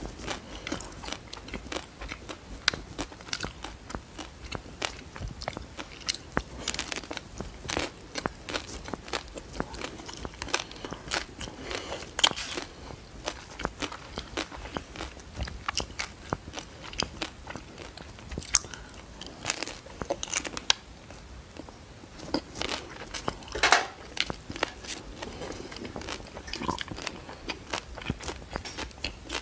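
Close-miked eating of a chocolate-coated ice cream bar: a steady run of crisp crunching bites and chewing, with many sharp crackles. The loudest crack comes about two-thirds of the way through.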